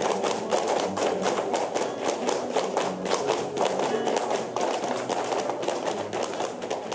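Flamenco dancers' shoes striking the floor in fast footwork (zapateado): a dense, continuous run of sharp taps.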